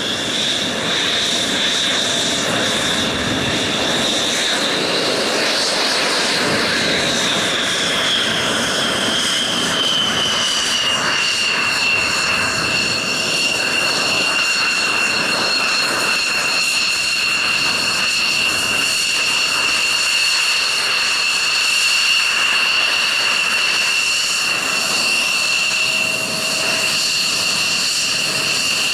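F-16 jet engines running on the ground: a loud, steady rushing roar under a high whine. The whine climbs a little about five seconds in, then drops and holds steady at a lower pitch from about ten seconds on.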